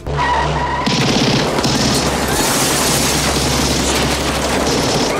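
Submachine gun firing one long, unbroken burst of rapid automatic fire, starting about a second in.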